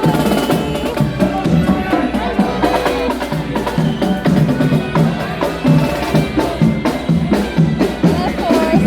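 Music with a steady drum and percussion beat.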